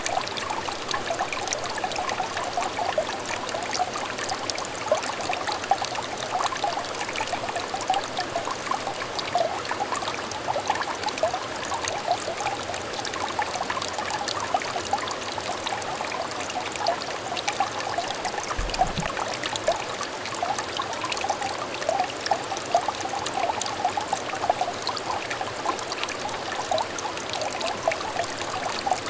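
Small stream of water trickling steadily over stones, full of little bubbling plinks.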